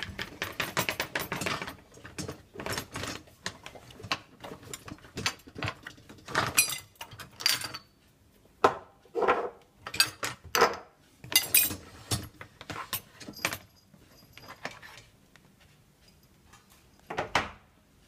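Dishes, cutlery and the dishwasher's wire racks clinking and rattling as they are handled, in an uneven run of short clattering bursts with a last one near the end.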